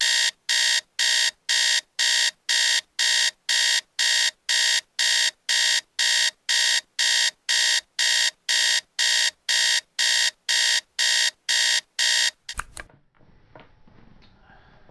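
Electronic alarm clock beeping: short high-pitched beeps repeating about twice a second. The beeping stops abruptly about twelve seconds in, followed by a brief knock.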